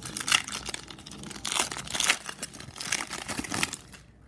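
Foil trading-card pack wrapper crinkling and tearing in irregular bursts as it is ripped open by hand. The noise stops shortly before the end.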